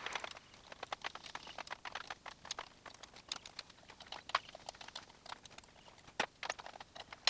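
Irregular light clicks and taps, several a second, with a sharper knock a little past six seconds in.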